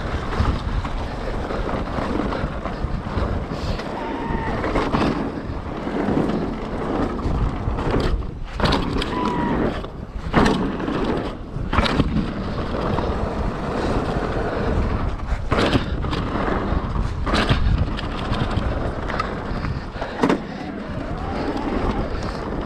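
Mountain bike descending a trail at speed: wind buffeting the helmet or chest camera's microphone over a steady rumble of tyres on dirt and stones, broken by frequent sharp knocks and clatters as the bike hits bumps.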